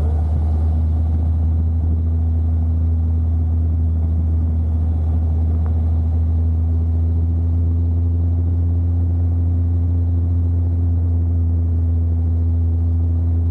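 Motorcycle engine running at a steady road speed, an even drone that holds without revving up or down.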